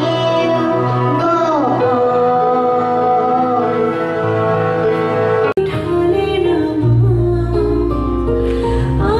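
A young girl singing into a microphone over a musical backing track, holding and sliding her notes. About five and a half seconds in, this cuts off abruptly into a different recorded song with a heavier bass.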